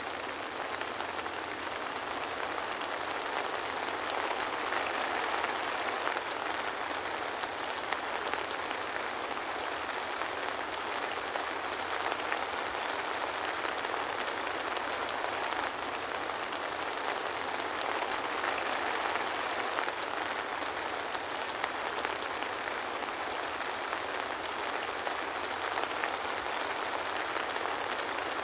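Steady soft rain falling on a surface, an even patter without thunder.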